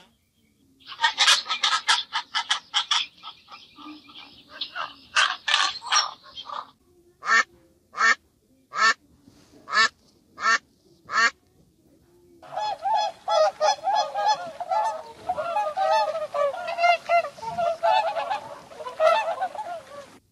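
Ducks quacking: a rapid run of calls, then seven single quacks evenly spaced about two-thirds of a second apart. From about twelve seconds in, swans honking in a continuous chorus.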